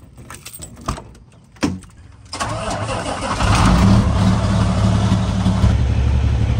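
A key clicking in a semi truck's cab door lock and the latch popping open. About two seconds in, the truck's diesel engine cranks and fires, then settles into a steady idle.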